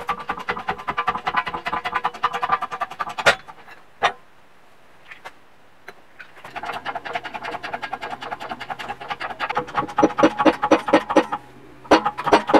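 Background music with a fast, steady beat. It drops out for about three seconds a few seconds in, where two sharp clicks are heard, then comes back.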